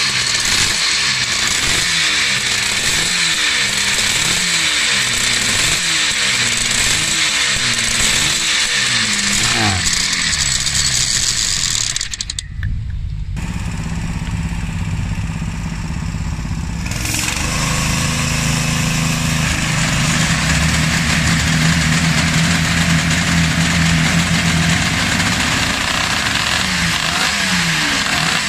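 Suzuki RG500's two-stroke square-four engine revved in quick blips, about one a second. After a break, a petrol-engined roller starter drones steadily as it spins the rear wheel to start the bike. Near the end the engine is revving in blips again.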